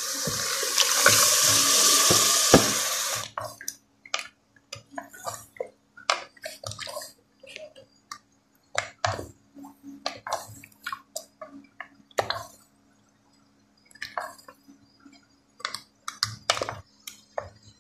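Spinach paste sizzling loudly as it hits the hot oil and tomato masala in an aluminium pressure cooker, stopping suddenly about three seconds in. Then a wooden spoon stirring and scraping against the pot in short, irregular strokes.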